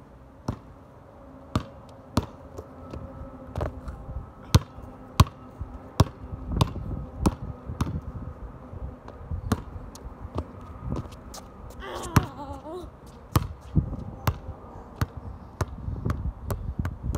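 Basketball being dribbled, bouncing sharply about once or twice a second at an uneven pace. Wind rumbles on the microphone at times.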